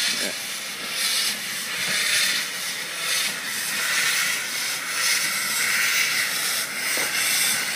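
Narrow-gauge steam locomotive letting off steam: a loud, continuous hiss that wavers in strength.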